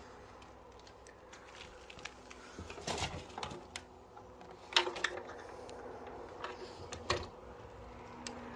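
Scattered clicks and knocks at irregular intervals over a low steady background, the loudest a sharp knock about five seconds in, another about seven seconds in, and a small cluster about three seconds in.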